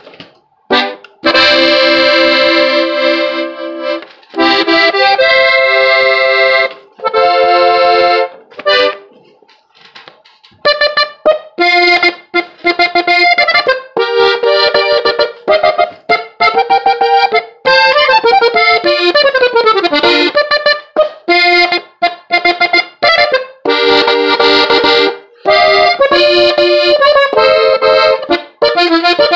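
Gabbanelli norteño button accordion tuned in G being played by a beginner: held chords at first, a short pause, then quicker runs of notes, with a falling run near the middle.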